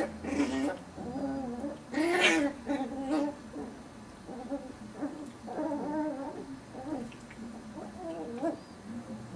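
Seven-week-old Chihuahua puppies growling and whining in short, wavering bouts as they play-fight, with one louder, sharper cry about two seconds in.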